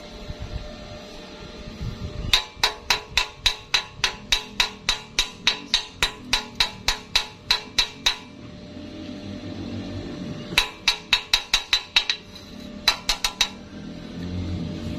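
A hammer striking metal in quick, even runs, about four ringing strikes a second: a long run of about six seconds, then two shorter runs. In a stick-welding job this fits a chipping hammer knocking slag off a fresh weld bead.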